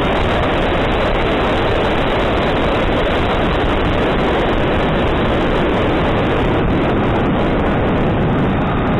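Steady, loud rush of wind and ducted-fan noise heard from a GoPro riding on an E-flite F-15 electric ducted-fan RC jet in flight.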